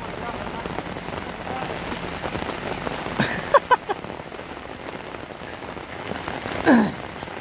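Steady heavy rain falling on a paved road and puddles, an even hiss. A few short shouts break through about three and a half seconds in, and one falling yell near the end.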